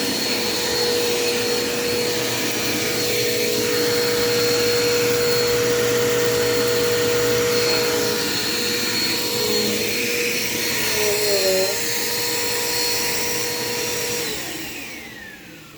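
Dirt Devil Quick Power vacuum cleaner running steadily with a high motor whine, then switched off near the end, its whine falling as the motor spins down.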